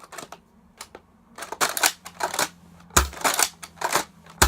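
Plastic clicking and rattling from a Nerf Recon Mark II blaster being handled, with two sharp, louder knocks, about three seconds in and at the end.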